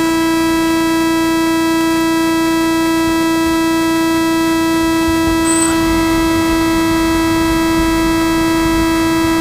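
A loud, perfectly steady whine held at one pitch, with many overtones.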